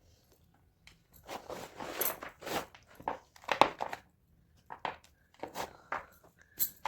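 Blocks of gym chalk being crushed: a quick run of dry, crumbly crunches about a second in, then single crunches every half second or so.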